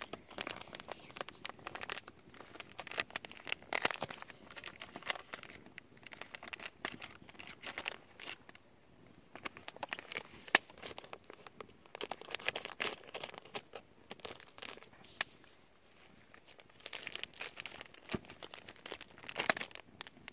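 Plastic bag crinkling and rustling in several bursts of a second or two, with scattered sharp clicks, as someone struggles to tear it open.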